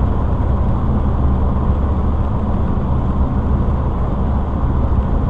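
Steady low road and engine noise inside a cargo van's cabin, cruising at highway speed.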